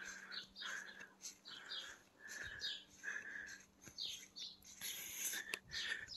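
Small birds chirping over and over: a run of short chirps, about two a second, some of them falling in pitch.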